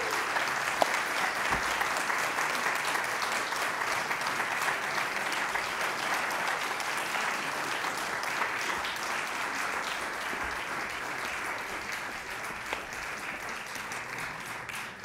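Concert audience applauding steadily, slowly dying down toward the end.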